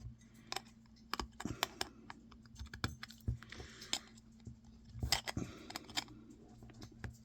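Irregular small clicks, taps and scrapes of metal shield pieces being pried off a cell phone circuit board with small hand tools.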